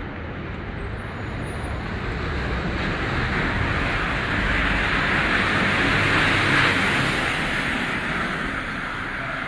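A city bus and a car drive past on a wet street, their tyres hissing on the wet road. The sound swells, peaks about six or seven seconds in, and fades as they move away.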